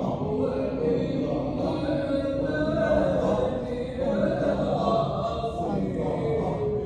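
Sufi hadra dhikr: a group of voices chanting together without pause, a slow melodic line gliding up and down over the massed voices.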